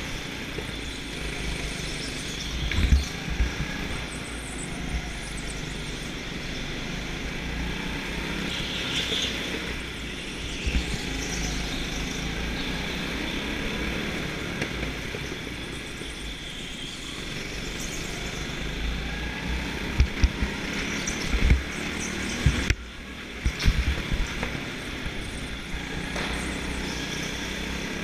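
Go-kart driven at speed around an indoor track, heard from a camera on board: a steady run of motor and tyre noise, broken by a few sharp low thumps and knocks, most of them between about 20 and 24 seconds in.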